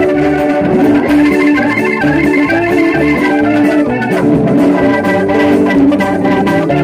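Live rock band playing an instrumental passage: electric guitar lines over sustained organ chords, with a steady drum beat.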